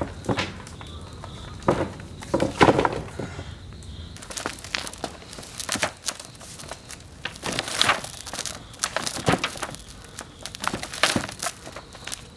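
A large stone rocked and rolled by hand over printing plates covered in crinkly plastic-like sheets, the sheets crunching and crackling irregularly under its weight, loudest about two to three seconds in. The stone is standing in for an etching press to print drypoint plates.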